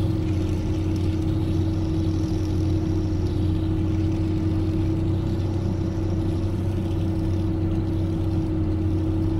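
Steady hum of a car's running engine heard inside the cabin, a constant low rumble with one even tone held above it.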